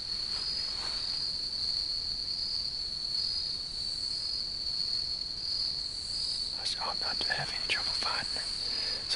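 Steady insect chorus holding one high pitch without a break.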